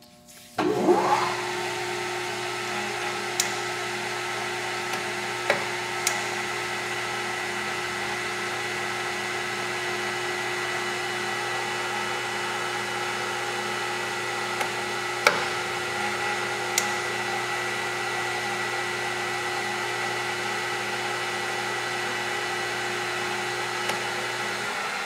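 A Microweily 16 x 40 gear-head lathe's 5 hp spindle motor and headstock start up about half a second in, rising quickly to speed, then run steadily with a constant gear whine. A few sharp clicks from the controls come along the way.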